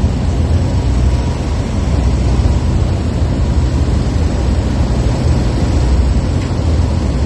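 Steady, loud low rumble of machinery running, with a faint steady high whine above it.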